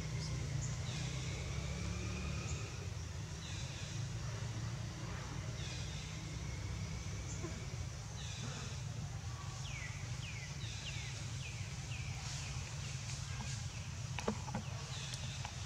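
Outdoor ambience: a steady low rumble under a series of short, high, falling chirps that repeat every second or so, coming several in quick succession near the middle, with a single click near the end.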